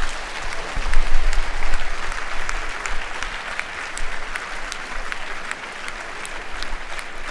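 Audience applauding: dense clapping, loudest in the first couple of seconds and then holding a little lower.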